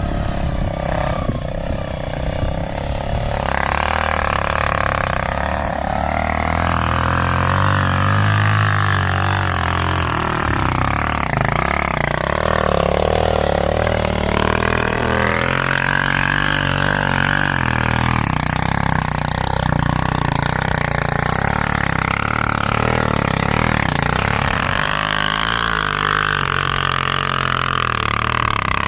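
A vehicle engine running under load, its pitch rising and falling as it revs.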